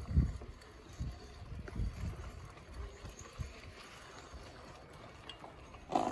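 Bicycle rolling over a rough road: a low rumble with knocks and scattered clicks, the heaviest knock right at the start, and a short louder burst of noise near the end.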